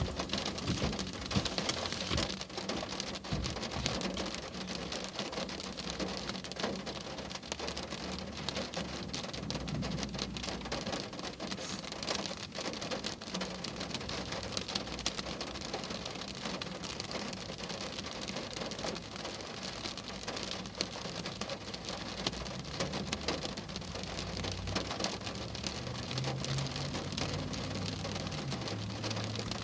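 Steady heavy rain, a dense patter of drops hitting a surface.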